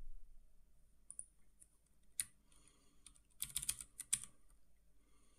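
Faint typing on a computer keyboard: a few separate keystrokes, then a short quick run of them about three and a half seconds in.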